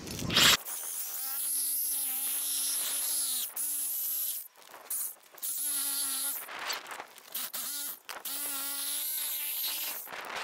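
Corded reciprocating saw cutting through the asphalt-shingled roof for a chimney hole: a steady high buzz in several runs of one to three seconds with short stops between, after a sharp knock just before the first run.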